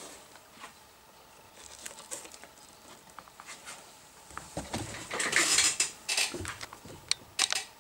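Handling noise: scattered light clicks and knocks, with a burst of rustling about five seconds in, as the foam-covered goggles, their strap and cables and the camera are moved about.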